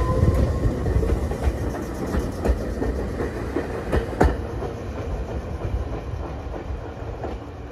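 Meitetsu electric train pulling away from the platform: its rising motor whine fades out in the first half-second, then its wheels clack over the rail joints as it grows fainter.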